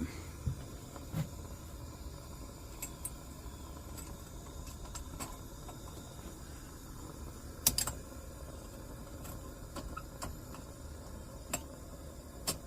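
Scattered light clicks and taps of small metal lantern parts being handled, over a faint steady background hiss.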